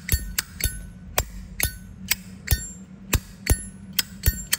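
2015 silver-plated Zippo lighter's lid flicked open and snapped shut over and over, about a dozen sharp metallic clicks at two to three a second, each with a brief bell-like ring. The clear ring is valued by collectors and is called very nice.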